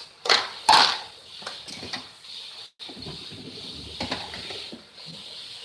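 Plastic food containers and lids being handled and set down on a kitchen cupboard shelf: two sharp clatters in the first second, then lighter knocks and shuffling.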